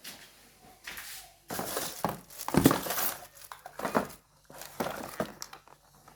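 Bursts of crinkling and rustling handling noise in a small room, with a few knocks; the loudest comes about two and a half seconds in.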